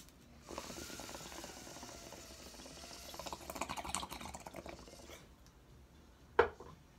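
Water bubbling in a glass bong as a lighter burns the bowl and a long hit is drawn through it; the bubbling grows stronger in the middle and stops about five seconds in. A single short knock near the end.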